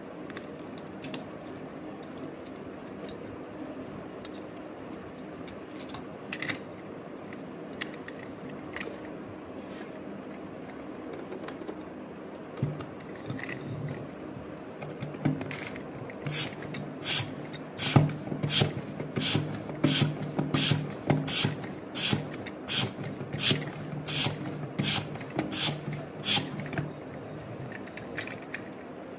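Hand-pumped toy balloon launcher: a quick run of about eighteen pump strokes, a little under two a second, in the second half, each forcing a puff of air into a latex balloon on the toy car. Before that, the rubber balloon is rustled and stretched onto the car's nozzle, with a few small plastic clicks.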